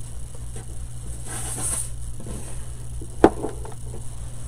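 Handling sounds as a plastic LED UV curing lamp is brought onto a paper-covered craft table: a brief soft rustle, then one sharp knock about three seconds in as it is set down. A steady low hum runs underneath.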